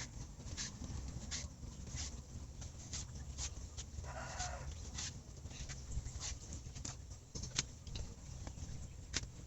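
Knife chopping taro stems, a string of sharp, irregular cuts about one or two a second. A brief animal call sounds about four seconds in.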